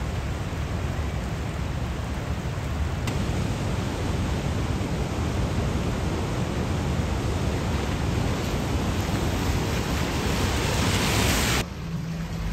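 Swollen, flooding creek water rushing and churning: a steady, loud rush of noise that cuts off abruptly near the end.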